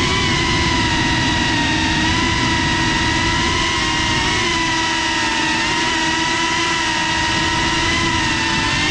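FPV quadcopter's motors and propellers whining steadily, heard from the onboard GoPro, the pitch wavering slightly with throttle over a low rushing of prop wash and wind.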